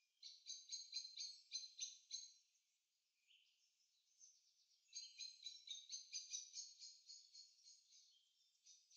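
Faint birdsong: a small bird repeating rapid high chirps, about four a second, in two bouts, one at the start and a longer one from about halfway in.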